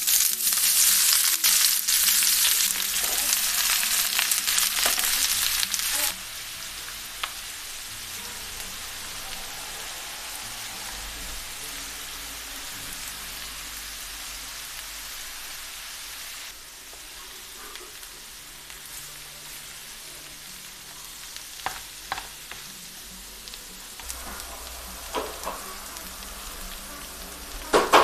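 Sliced onions sizzling loudly as they are tipped into hot sunflower oil in a frying pan, the sizzle dropping abruptly after about six seconds to a steadier, quieter frying as they cook down for caramelising. A wooden spatula scrapes and taps in the pan now and then as the onions are stirred, more often near the end.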